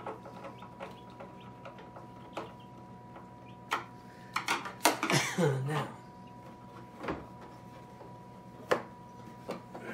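Hard clear-plastic parts of a Brinsea Ovation 56 EX incubator knocking and clacking as the cover is handled and fitted back on, a scattered series of sharp clicks, loudest about five seconds in. A steady faint hum runs underneath.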